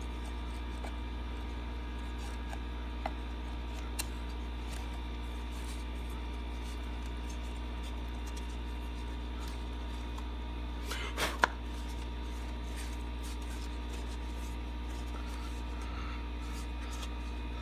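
Steady low machine hum with light wooden clicks and knocks as CNC-cut plywood box parts are handled: two small clicks a few seconds in and a louder knock about eleven seconds in.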